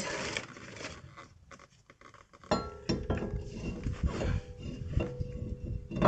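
Light metal clinks and handling noise of a new brake rotor being lifted from its plastic wrapping and set onto the wheel hub. About two and a half seconds in, background music with a steady tone comes in and carries on under the clinks.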